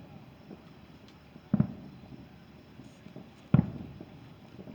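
Two aerial firework shells bursting with sharp booms, about two seconds apart, each trailing off in a short rumbling echo.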